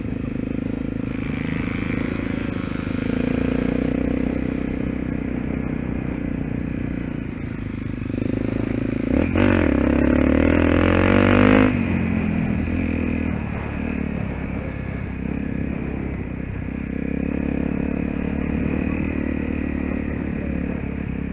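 Honda dirt bike's single-cylinder four-stroke engine running while riding. It revs up with a rising pitch about nine seconds in, then drops back sharply a couple of seconds later.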